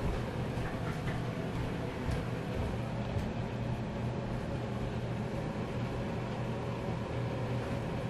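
Steady low mechanical hum with a faint background hiss, broken by a few faint ticks.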